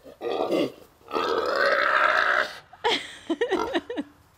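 Pot-bellied pig giving rough, growly grunts: a short one, then a long loud one of about a second and a half, then a few short ones.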